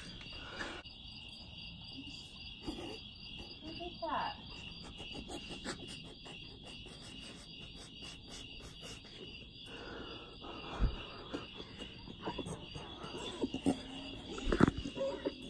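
Crickets chirping in a steady, even pulsing rhythm on a night-time porch, with faint rustling and a few soft knocks.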